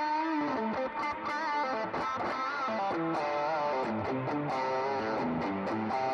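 Electric guitar with single-coil pickups playing a lead solo line of single notes with bends and vibrato, overdriven and run through a JHS mini compressor (Whitey Tighty) with a solo delay added.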